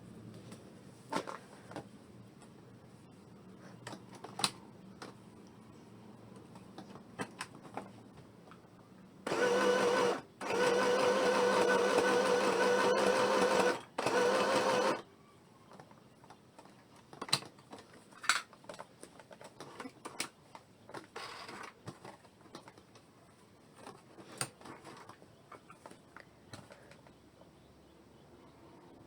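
Small portable electric sewing machine sewing a straight stitch, its motor running in three runs of about one to three seconds each with a steady hum, stopping briefly between them. Before and after, scattered light clicks and knocks.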